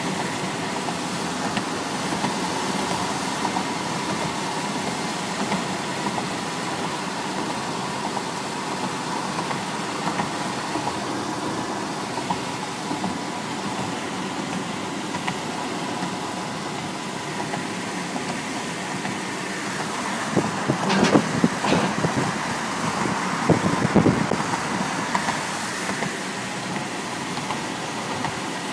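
Steady road and tyre noise from a car driving in traffic, heard from inside the car. A few short, louder thumps come about three-quarters of the way through.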